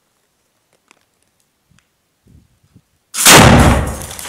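A single very loud shot from a tripod-mounted heavy weapon fired inside a small concrete room, bursting in suddenly about three seconds in and echoing as it dies away over a second or more. A few faint clicks from handling the weapon come before it.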